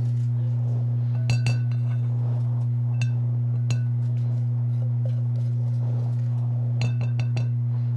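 Stainless saucepan clinking against the rim of a glass measuring bowl as melted chocolate is scraped out of it with a spatula: a few sharp, ringing clinks, then a quick cluster of them near the end, over a steady low hum.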